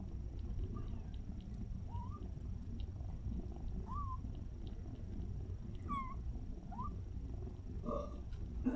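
Kittens squeaking in short, high mews, one every second or two, with a louder cry near the end, over a steady low rumble.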